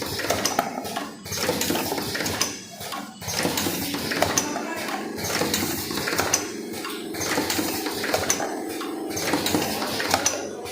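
Vertical automatic cartoning machine running, its mechanism giving a continuous busy clatter with many sharp metallic clicks and clinks over a steady machine hum.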